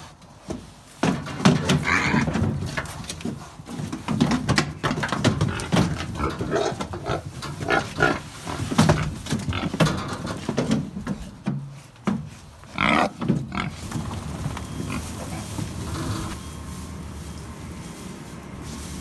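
Pigs grunting and squealing in irregular bursts, with two sharper, higher squeals about two seconds in and again near thirteen seconds. The calls die away after about fourteen seconds, leaving a steady low background.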